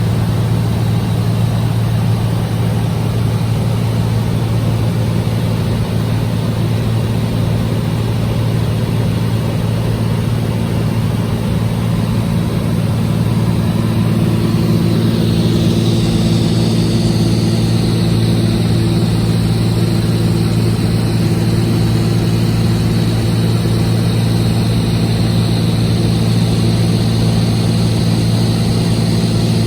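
Cessna 206H Stationair's six-cylinder Lycoming piston engine and propeller droning steadily in flight. A higher whine joins in about halfway through.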